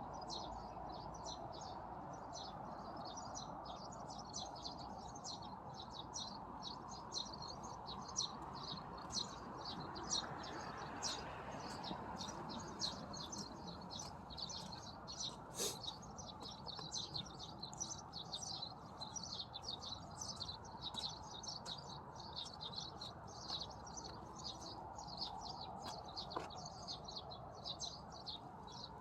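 Many small birds chirping and calling at once in a dense, continuous chorus of quick high notes, over steady background noise.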